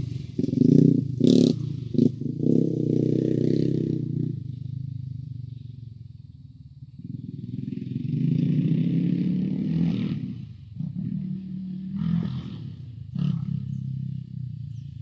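Quad ATV engine running and revving up and down; it fades away about six seconds in and swells again a second later. A few sharp knocks are heard early on and near the end.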